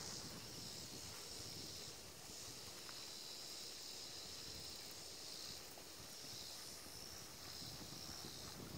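Steady high-pitched insect chorus that swells and eases every few seconds, over a low rumble of wind on the microphone.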